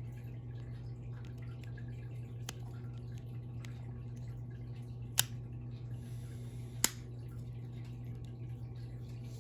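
Two sharp clicks about a second and a half apart, with a fainter click earlier, over a steady low hum: small clicks from handling the AirPods and their packaging.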